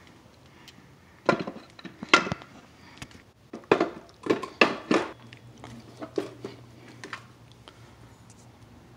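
Metal clinking and knocking as a differential assembly is lowered by hand into an open manual transmission case and seated: a string of irregular sharp clinks, heaviest in the middle, that stops well before the end.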